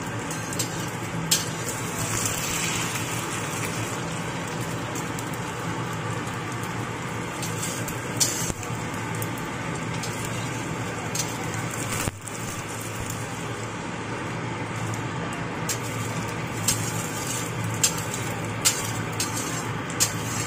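Egg omelette with spring onion sizzling in hot oil in a stainless steel wok, over a steady low hum. A few light clicks of a metal spatula against the pan are scattered through it.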